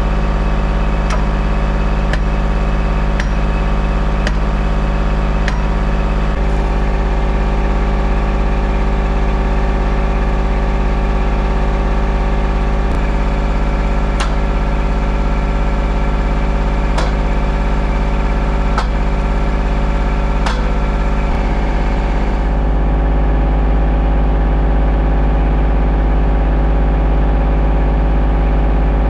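An engine idling steadily, with scattered sharp clicks and knocks over it; the engine's sound changes slightly about three-quarters of the way through.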